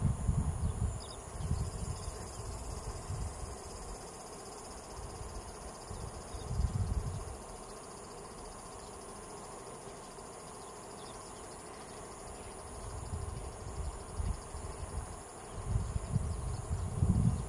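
Steady high-pitched chorus of insects trilling in the grass, with a still higher band joining about a second in. Low rumbles come and go underneath, loudest near the start and the end.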